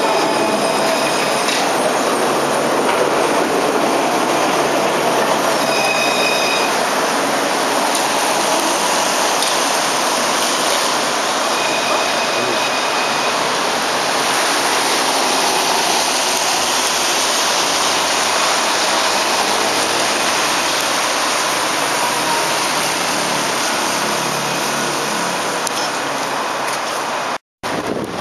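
Alstom Citadis tram running off along the track, with a few brief high wheel squeals over a steady rushing noise.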